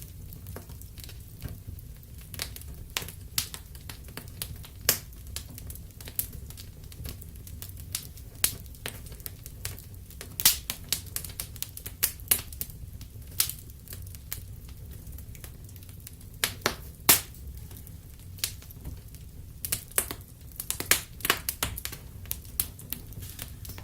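Wood fire crackling in a fireplace: irregular sharp pops and snaps over a steady low rumble of the flames, the pops coming thicker about ten seconds in and again near the end.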